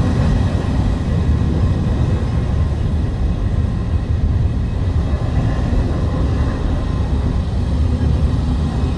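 Passenger train coaches rolling past alongside a platform: a steady low rumble of wheels on rail.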